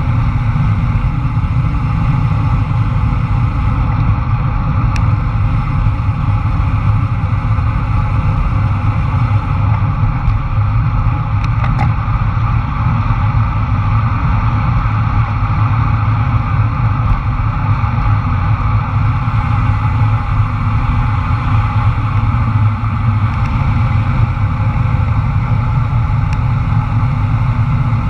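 Wind buffeting the microphone of a bicycle-mounted action camera on a fast road-bike descent: a loud, steady low rumble.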